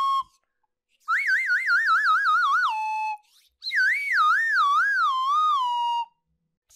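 Cartoon whistle sound effect: a clean warbling tone plays twice, each time wavering and sliding down in pitch before holding a steady note, the second with a slower wobble. A quick swoop down and back up starts near the end.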